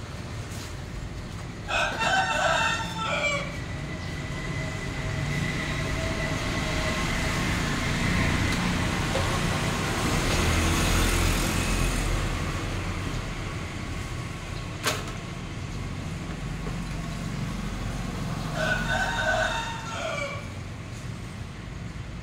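A rooster crowing twice, once about two seconds in and again near the end, each crow lasting about a second and a half. Under it runs a low rumble that swells and fades in the middle, and a single sharp click comes about fifteen seconds in.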